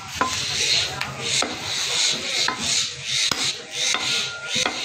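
Butcher's cleaver chopping beef on a wooden log chopping block: several sharp knocks about a second apart, with rhythmic scraping and slicing between them.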